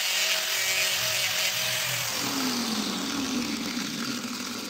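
Angle grinder with a flap disc running and sanding the edge of a thin wooden spatula. Its pitch sags and slides lower about halfway through.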